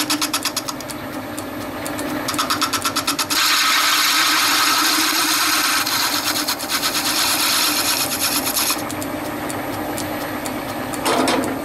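Metal lathe running with a steady hum while a lathe tool turns the outside rim of a cast aluminium model-engine wheel. The cut hisses in a rapid pulsing at first, then steadily for several seconds, and eases off near the end.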